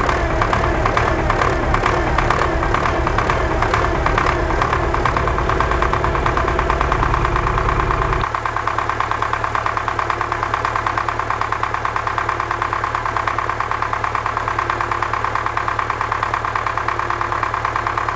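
Belarus 525 tractor engine running. About eight seconds in, the heavy low part of its sound drops away suddenly and it settles into a slightly quieter, steady idle.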